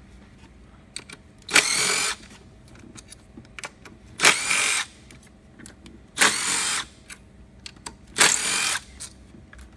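A cordless power driver spins out the 8 mm bolts that hold the ignition coils down, in four short bursts of about half a second each, with faint clicks of the socket and bolts between them.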